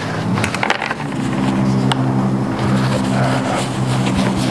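A motor vehicle engine running at a steady pitch, settling in about a second in, with a few light clicks over it.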